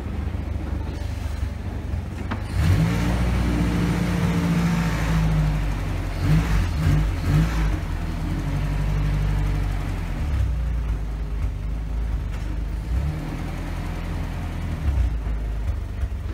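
Boat engine running with a steady low drone, louder for a few seconds about three seconds in.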